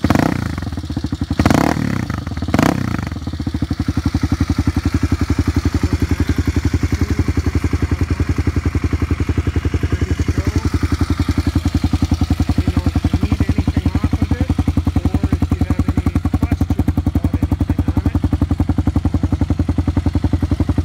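Kawasaki KLX250SF's single-cylinder four-stroke engine running through an aftermarket Two Brothers Racing exhaust: three short surges in the first three seconds, then a steady idle.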